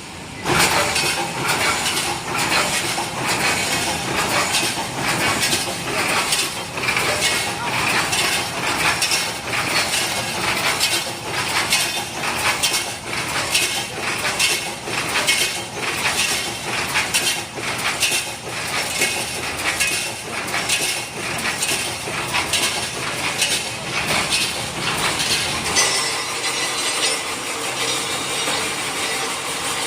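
Automatic wire mesh welding machine running, with a sharp repeating stroke about once a second as it cycles through its welds.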